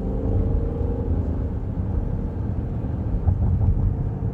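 Car engine and exhaust droning at cruising speed over a low rumble of tyres on the road, heard from inside the cabin.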